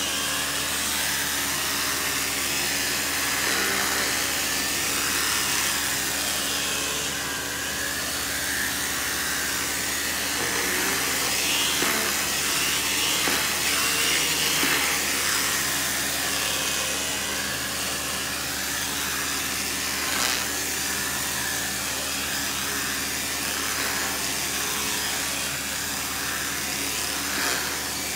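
Janilink carpet steam cleaner's vacuum motor running steadily, with the hiss of suction through the hand tool changing as it is pushed and pulled over the wet carpet, drawing up water.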